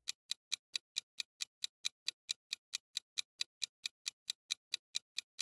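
Countdown-timer ticking sound effect: quick, even clock-like ticks, about four to five a second, marking the seconds left to answer.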